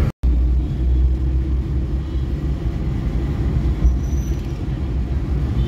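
Steady low rumble of a car driving in city traffic, heard from inside the cabin. The sound drops out for a moment right at the start, and a brief faint high tone comes about four seconds in.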